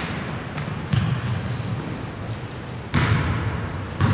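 Basketball dribbled on a hardwood gym floor: a few sharp bounces about a second apart, echoing in the large hall, with a brief high-pitched sneaker squeak near the third bounce.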